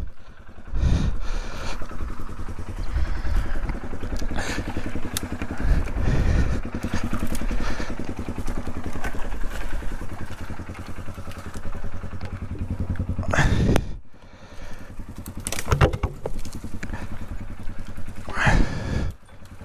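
Polaris off-road vehicle's engine running under load, with low thumps and several short, loud surges of revving or rushing noise.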